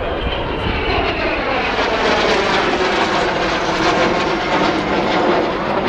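Display aircraft passing overhead, a continuous engine noise that slowly grows louder, with a tone that sweeps and shifts in pitch as they pass.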